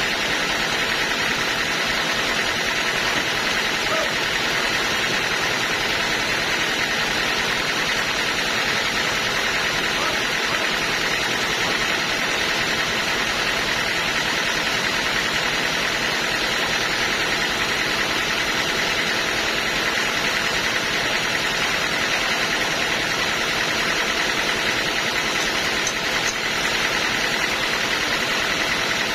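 Sawmill running with a steady, unbroken machine noise.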